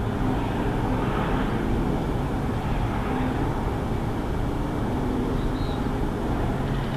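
Steady drone of a distant engine, picked up by an outdoor webcam microphone, with a faint high chirp about five and a half seconds in.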